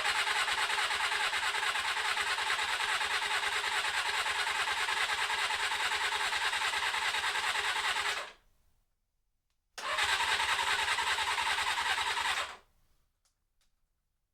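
1980 Suzuki GS550's air-cooled inline-four being cranked on its electric starter after a carburetor rebuild, not catching: one long crank of about eight seconds, a short pause, then a second crank of about three seconds, each stopping abruptly.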